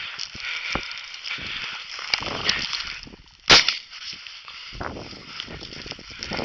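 A single shotgun shot about three and a half seconds in, sharp and far louder than anything else, over steady rustling from moving through brush.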